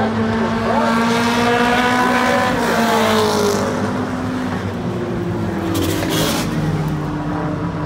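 Race car engines running hard around an oval track, several at once. One car passes close about three seconds in, its engine pitch dropping as it goes by.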